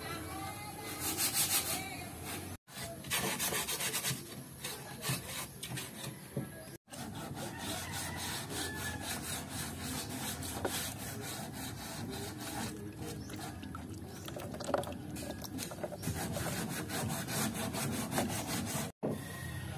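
Wooden stick stirring thick white epoxy paint in a cut-down plastic bottle, a steady run of scraping and rubbing strokes against the container. The sound breaks off briefly three times at cuts.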